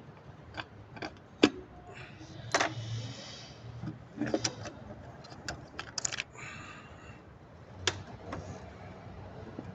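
Scattered sharp clicks and knocks with light rattling from hands working at the wiring harness connectors and hoses in a Chrysler 300's engine bay, the loudest click about a second and a half in.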